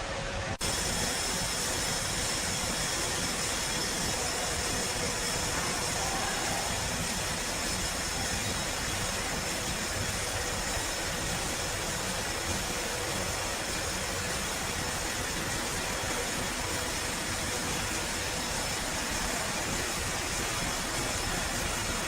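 Sawmill machinery running steadily, a continuous even noise with a faint steady hum underneath.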